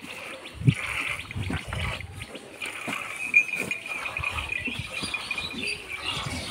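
Hand-milking a cow: milk squirting in short, irregular streams into a bucket, with soft knocks from the hands and the bucket. A steady high tone runs in the background from about two and a half seconds in to about six seconds.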